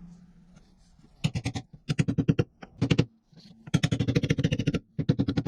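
A man laughing in several bursts of rapid 'ha-ha' pulses, breaking off and starting again about five times.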